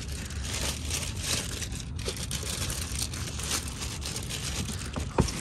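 Clear plastic protective wrap on new car seats crinkling and rustling as it is handled, a dense crackle of small clicks, with a sharper knock near the end.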